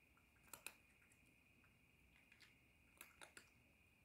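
Faint, sharp crunches of a cat chewing dry kibble from a bowl, a few at a time at irregular intervals: a pair about half a second in and a quick cluster around three seconds in.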